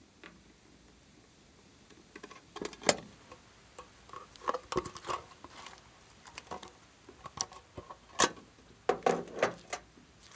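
Glossy slime squeezed and pulled by hand, making an irregular run of sticky squelches and small crackling pops from about two seconds in. The sharpest pops come around three seconds in and again around eight seconds in.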